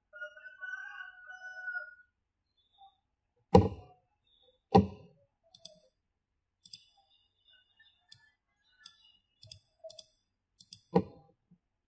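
Computer mouse clicks: a run of light clicks with three louder knocks, the first two about three and a half and five seconds in and the third near the end.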